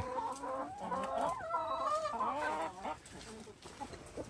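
Domestic hens clucking in a wavering, drawn-out call for about three seconds, then falling quieter.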